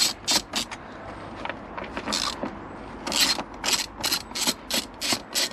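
Hand ratchet clicking as the screws holding down the engine's top cover are undone: a few quick strokes at first, a pause, then an even run of about three clicks a second from about three seconds in.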